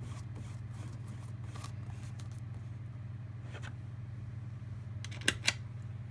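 Faint handling clicks and scrapes as PVC arm pieces are fitted onto a cup turner, with two sharp clicks close together about five seconds in, over a steady low hum.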